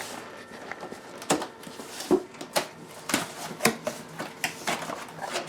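Cardboard box and packing being opened and handled: a series of sharp knocks and scrapes, roughly every half second, with rustling in between.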